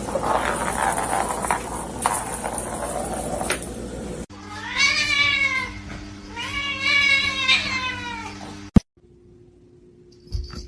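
A cat giving two long, drawn-out meows, each rising and then falling in pitch. A few seconds of indistinct noise and knocks come before them.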